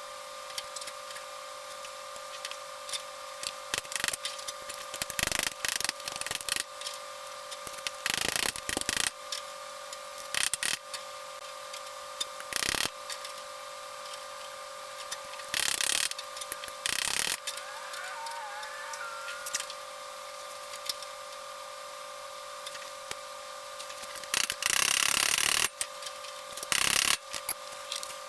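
Intermittent short scrapes, rubs and knocks of hand work on sheet metal, with a few longer scraping strokes near the end, over a steady hum.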